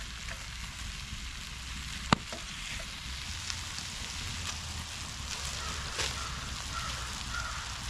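Steak, onion and red pepper sizzling in a cast iron pan while being stirred, a steady hiss with one sharp knock about two seconds in.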